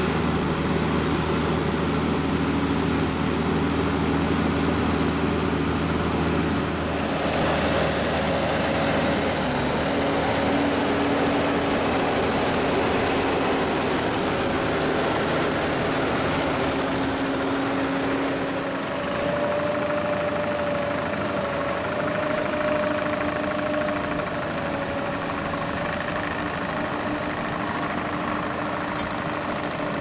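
Tractor engine running steadily under load while pulling a Dewulf RA2060 two-row trailed potato harvester, mixed with the noise of the harvester's running webs and elevators sieving soil. The engine note shifts twice along the way.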